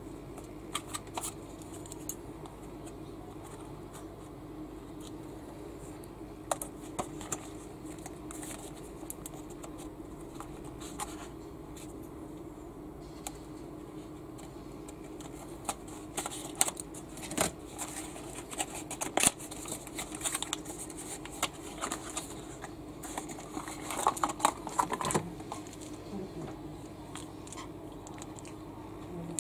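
Scissors snipping at a cardboard toy box, with handling clicks and rustles of the cardboard, busiest in the second half. A steady low hum runs underneath.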